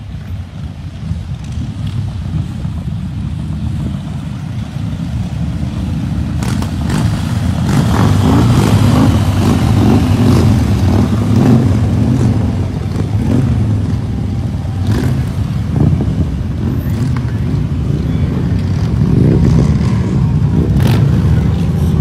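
A long procession of motorcycles riding past, their engines a low rumble that builds over the first several seconds as the bikes approach, then stays loud as one bike after another goes by.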